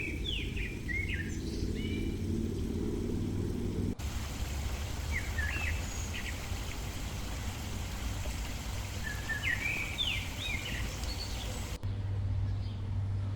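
Small birds chirping in short, scattered calls over a steady low rumble of outdoor background noise. The background changes abruptly twice, at cuts between clips.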